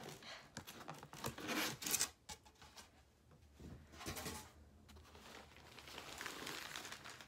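Foam shipping box lid scraping and rubbing as it is worked off, loudest about a second and a half in, then crumpled newspaper packing rustling as it is pulled out.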